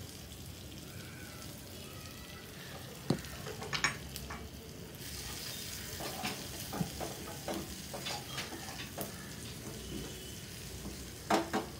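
Shallots, dried red chillies and spices frying in ghee in a small tempering pan, sizzling steadily. A wooden spatula stirs and knocks against the pan, a few times about three seconds in and repeatedly from about six seconds on.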